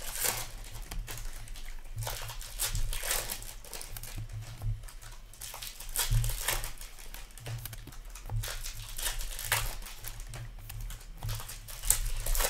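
Hockey trading cards being handled and sorted onto stacks on a tabletop: irregular papery rustles, flicks and slides of cards, with soft low bumps of hands on the table.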